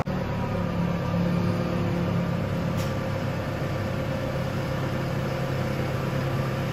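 Engine of a forklift-style loader running steadily close by as it brings a loaded pallet up to the truck's open rear, its note changing slightly about three seconds in.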